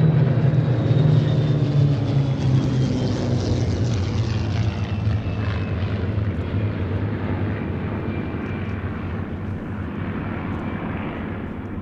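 A formation of Spitfires flying past, their piston engines droning together with a thin high whine that slowly falls in pitch. The sound fades steadily as the formation draws away.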